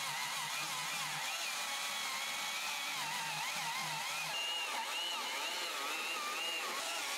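Two-stroke chainsaw running at high revs, its pitch wavering up and down.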